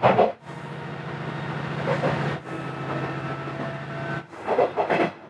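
Diesel railcar running along the line, heard from inside the car: a steady engine drone, with short louder bursts of running noise at the start and about a second before the end.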